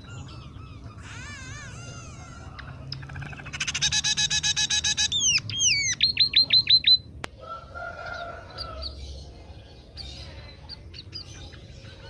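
Scaly-breasted munia (emprit peking) singing a varied song filled with phrases learned from other birds. A wavering trill comes about a second in, then a loud fast run of repeated notes, falling whistles and a string of about seven quick notes. Softer chatter follows.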